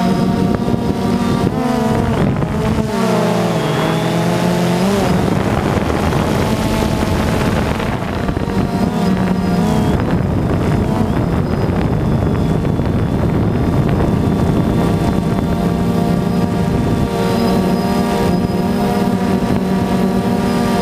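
DJI Phantom 2 quadcopter's four electric motors and propellers running in flight, a steady multi-toned buzz heard from the onboard camera. Its pitch dips and swings several times as the motor speeds change in manoeuvring, notably a few seconds in and again about ten seconds in.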